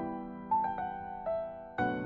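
Slow piano music: a few notes struck about every half second to a second, each left to ring and fade.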